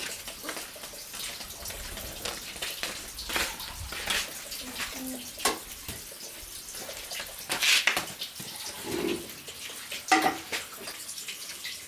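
River water splashing and sloshing irregularly, with a few louder splashes scattered through.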